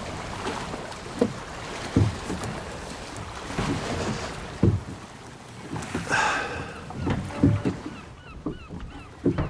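Oars working a small wooden rowboat: irregular knocks of the oars in their oarlocks, about one a second, over wind and choppy water. A short squeak about six seconds in.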